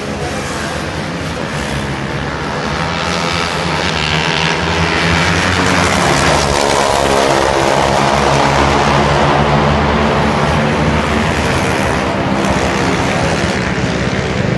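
Motorcycle engines running at high revs on the race track, swelling to a peak about halfway through as they pass, then easing off.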